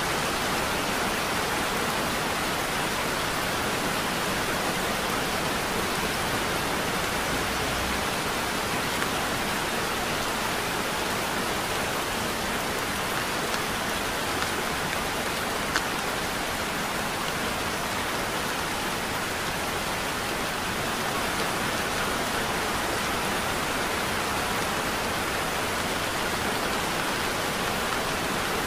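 Heavy rain falling steadily, an even hiss with no let-up, with a few brief ticks standing out here and there.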